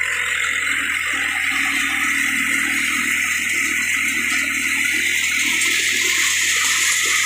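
Tractor-driven threshing machine running steadily, its drum and blower fan making a constant loud rush as chaff and straw dust are blown out of the machine.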